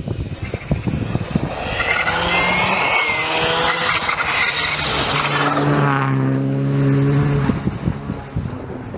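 Rally car driving hard past on a snow-covered special stage. The engine note rises as it approaches, holds high and steady, then drops off sharply about seven and a half seconds in and fades away.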